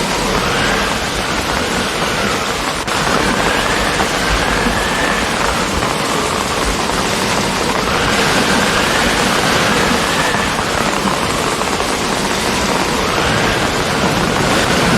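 Steady, heavy rain falling and spattering on surfaces, an even hiss with one short click about three seconds in. A faint tone rises and falls behind it every few seconds.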